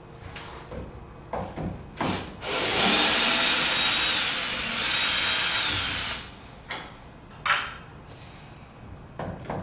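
A few light knocks, then a cordless drill runs steadily for about three and a half seconds, driving a screw into a wooden brace. A short second burst follows about two seconds later, and a few more knocks come near the end.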